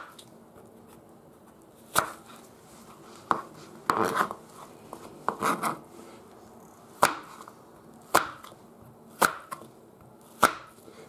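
Knife cutting an apple into small pieces on a plastic cutting board: the blade knocks on the board about once a second, eight or nine times, with some rustle of the apple around some of the cuts.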